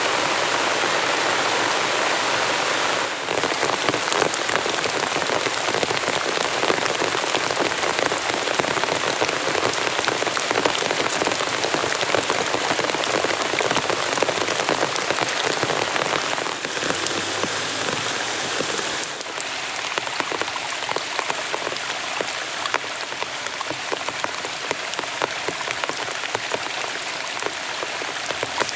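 Heavy rain pouring steadily: a dense, loud hiss of rain with many individual drops striking close by. It eases slightly about two-thirds of the way through.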